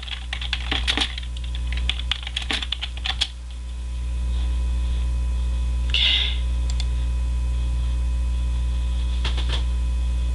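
Rapid clicking like typing on a keyboard for about three seconds, then a few more clicks near the end, over a steady low hum.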